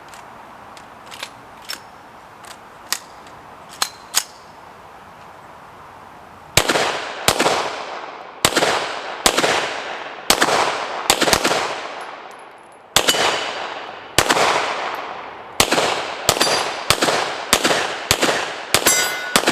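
A few light metallic clicks as the pistol is handled, then, about six and a half seconds in, a 9mm Glock pistol firing a long string of about twenty shots with short uneven pauses, each shot ringing out with an echo. The rounds are fed from an inexpensive 33-round extended magazine.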